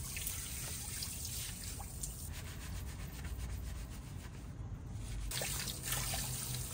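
Hands scrubbing wet, shampoo-lathered hair, with water dripping and trickling. The sound grows fuller a little after five seconds in.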